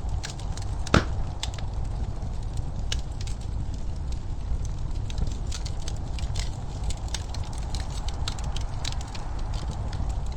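Wood fire crackling in a fireplace: irregular sharp snaps and pops over a steady low rush, with one loud pop about a second in.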